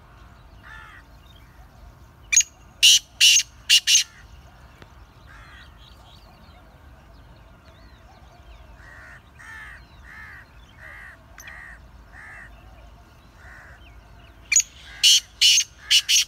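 Black francolin calling: a loud phrase of five harsh, grating notes about two and a half seconds in, repeated near the end. Between the two phrases comes a run of fainter, evenly spaced notes.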